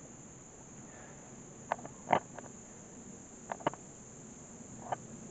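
A steady high-pitched insect chorus, like crickets or katydids in summer woods, with a handful of short sharp snaps and crunches from footsteps on twigs and dry leaves, the loudest about two seconds in.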